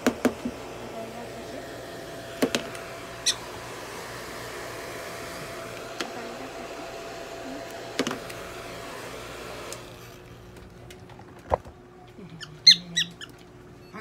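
Hand-held hair dryer blowing steadily, with a few clicks, switched off about ten seconds in. Then a single knock, and near the end a few short, high squeaks from the prairie dog.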